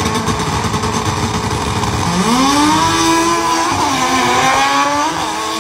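Drag cars at the start line, including a yellow Honda Civic hatchback: loud, harsh engine noise at high revs, then about two seconds in an engine note rises steeply as a car launches and accelerates down the strip. The pitch dips once near the end and then climbs again.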